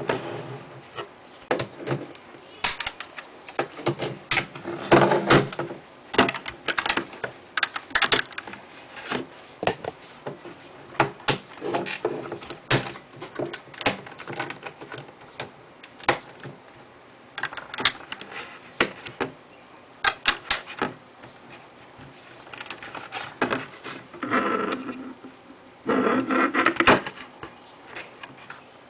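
Plastic Lego bricks clicking and clattering as they are handled and pressed onto a baseplate: irregular sharp clicks, with a few denser rattling stretches near the end.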